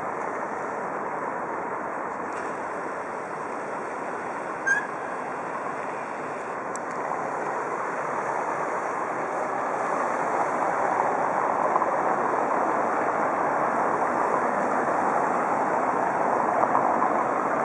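Swollen river water rushing steadily past a stone bridge pier, growing a little louder about ten seconds in. A brief high chirp about five seconds in.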